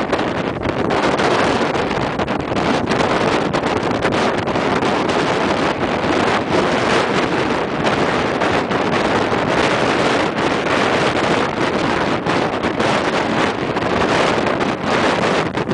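Strong wind blowing across the microphone: a loud, unbroken rushing noise that swells and dips with the gusts.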